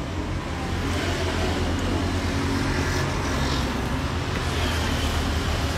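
Steady motor-vehicle noise: a continuous low rumble with hiss.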